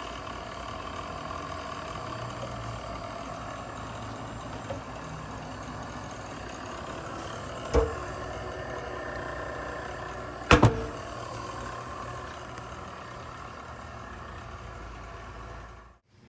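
Royal 618M hydraulic surface grinder running with a steady mechanical hum, broken by two sharp knocks, the second one doubled. The sound cuts off abruptly near the end.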